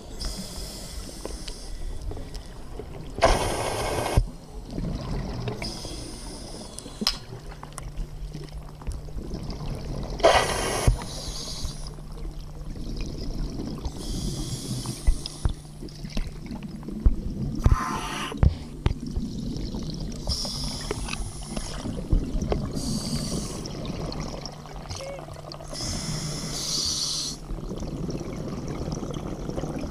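A scuba diver breathing through a regulator underwater: hissing inhalations and bubbling exhalations every few seconds, the loudest about 3 s in. A steady low hum joins at about 7 s.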